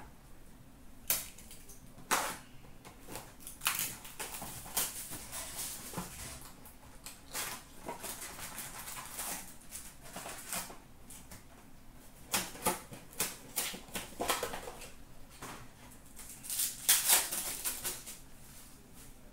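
Trading cards and packaging being handled: a string of sharp taps, clicks and rustles of cards, cardboard box and foil packs, with a louder cluster of crinkling and clicks near the end.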